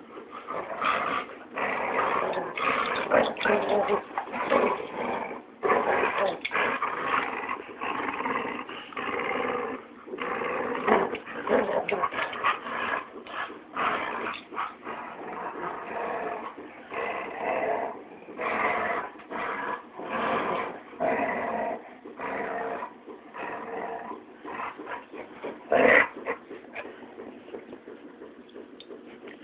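Dogs growling in rough play during a game of tug of war, deep growls that sound more like bears, in rapid irregular bursts that thin out and grow quieter over the last several seconds.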